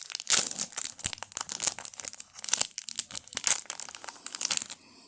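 Foil wrapper of a trading-card pack crinkling with dense crackles as it is handled and torn open. It stops near the end.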